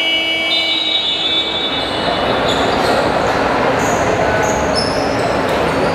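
Basketball scoreboard buzzer: a steady horn tone that dies away in the first second or two as play stops, then the din of a crowded gym with short high squeaks.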